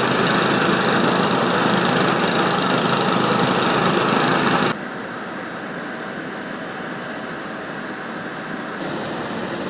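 Steady aircraft engine noise with a strong hiss, dropping abruptly to a quieter level about five seconds in, then stepping up again near the end with a high steady whine added.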